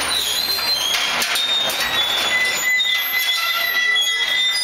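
Jean Tinguely's Heureka kinetic sculpture running: its scrap-iron wheels and linkages squeal with several steady high tones, over a continuous metallic clatter with repeated knocks.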